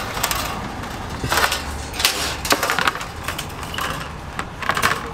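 A metal wire cooling rack and an aluminium sheet pan being handled on a table: a few short scrapes and clatters of metal.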